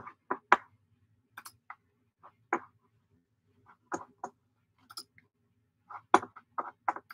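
Irregular sharp clicks, about a dozen in small clusters, from a computer being worked with mouse and keys, over a faint low hum.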